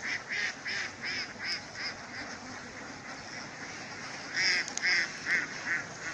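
A bird calling in two quick runs of short repeated calls: about seven in the first two seconds, then five louder ones starting about four and a half seconds in.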